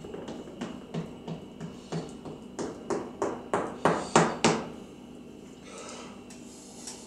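Metal spatula chopping down through set kazandibi and striking the bottom of an aluminium baklava tray: a run of about a dozen quick taps, about three a second, growing louder and stopping about four and a half seconds in.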